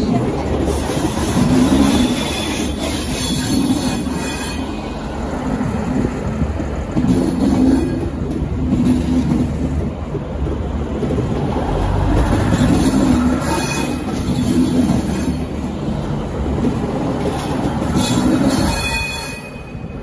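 V/Line VLocity diesel railcars rolling slowly past close by as they pull out: a steady rumble from the running gear and underfloor diesel engines that swells each time a bogie passes. There are brief faint high wheel squeals about two seconds in and again near the end.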